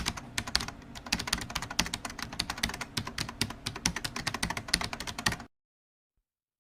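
Rapid, uneven run of light clicks, several a second, that cuts off abruptly to silence about five and a half seconds in.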